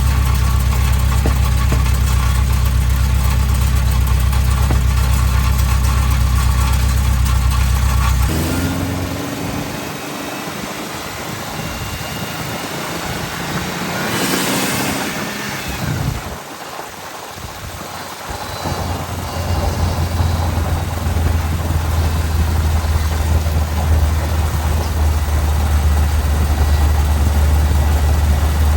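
Volkswagen Vanagon running, heard from the camera near its rear CV axle. A steady low engine hum gives way about eight seconds in to a noisier rushing stretch with a louder swell midway, and the steady hum returns near the end.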